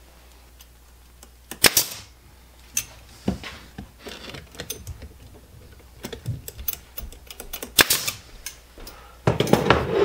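Small cypress wood blocks and a glue bottle handled on a workbench: scattered light taps and clicks, with two sharp louder knocks about two seconds in and near eight seconds. Louder knocking and rubbing of wood starts near the end.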